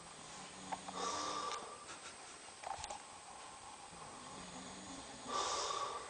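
A man snoring heavily in deep sleep. Two snores come about four seconds apart, each a low rattling drone that ends in a loud hissing rush of breath.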